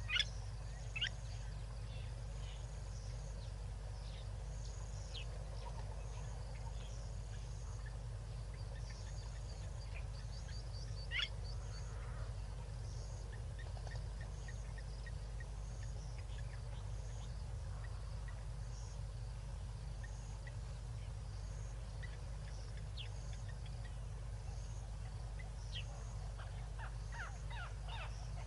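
White-faced whistling ducks giving short, high whistles now and then, the loudest about a second in and again about eleven seconds in, with a cluster of calls near the end. Under them run a steady low hum and a faint high insect chorus.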